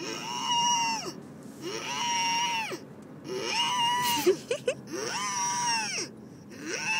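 A boy's high-pitched vocal wail imitating a tornado siren, repeated about five times. Each call sweeps up, holds for about a second and drops away, with a few short squeaky yelps just after the middle.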